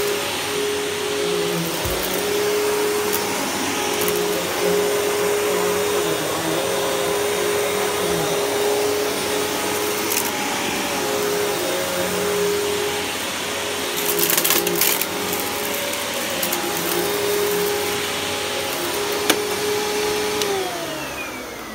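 Riccar bagged upright vacuum cleaner running on carpet: a steady motor hum over a rush of air, with a brief crackling about two-thirds of the way through. Near the end the motor winds down, its pitch falling.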